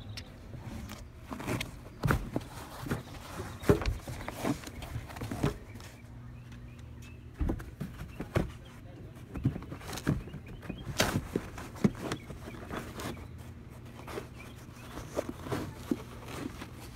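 Irregular knocks, clicks and rustles of a minivan's floor carpet and trim being pulled up by hand, over a steady low hum.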